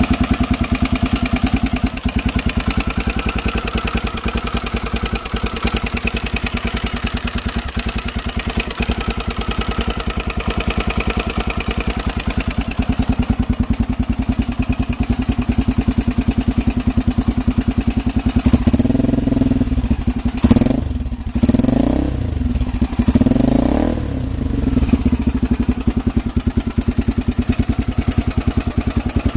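An engine idling with a fast, even pulsing, revved up and back down a few times about two-thirds of the way through. The running is the abnormal noise the recording was made to show.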